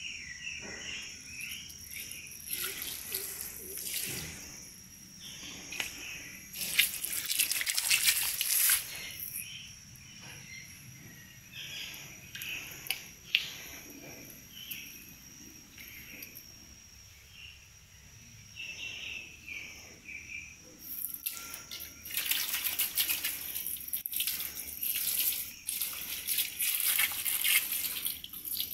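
Water from a garden hose splashing onto a wet floor, coming and going, loudest for a couple of seconds about a quarter of the way in and again over the last several seconds. A steady high insect trill runs underneath.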